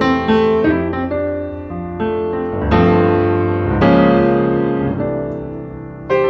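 Solo piano playing slow music: chords struck and left to ring and fade, with lighter melody notes between them. Fuller chords come about three and four seconds in and again near the end.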